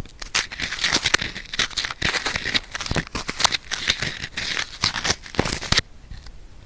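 Sticky cotton swab rubbing and scraping in an ear for ASMR ear cleaning: dense, fast crackling scratches that stop near the end.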